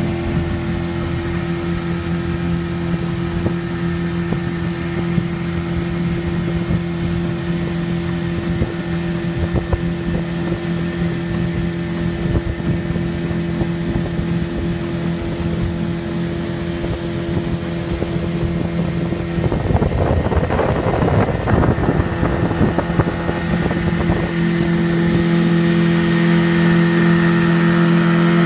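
Outboard motor running steadily with the boat under way, a constant engine hum over water and wind rushing past. About twenty seconds in there is a louder rush of noise for a couple of seconds, and the engine is a little louder near the end.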